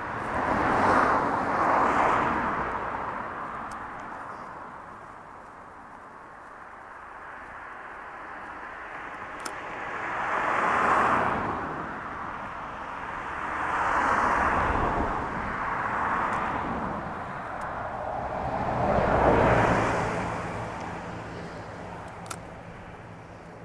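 Road traffic: cars passing one after another, each a rush of tyre and engine noise that swells and fades. About five go by.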